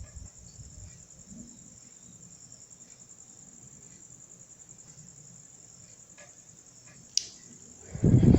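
Homemade fan driven by a microwave oven's cooling-fan motor: its hum dies away in the first second, leaving a faint steady high trill. About seven seconds in there is a sharp click, and near the end the fan starts again, its hum rising in pitch as it spins up.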